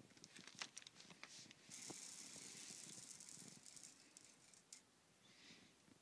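Floppy disk drive head stepper motors stepping under Arduino control, giving faint quick clicks and rattles. The clicks are busiest in the first second and a half, then turn to a hissing rattle that dies down around the middle.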